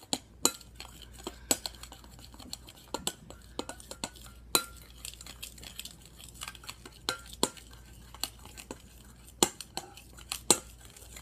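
A spoon stirring a thick foamy mixture of glue, shaving cream and foam soap in a glass mixing bowl. It knocks and clinks against the glass at irregular intervals, and some clinks ring briefly.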